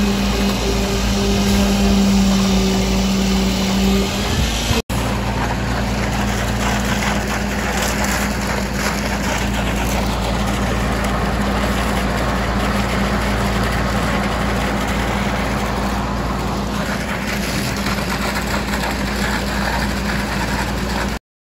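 Diesel engine of a concrete pump truck running at a steady speed while concrete is pumped through the boom hose into the footing forms. The sound drops out for an instant just before five seconds in, then carries on unchanged.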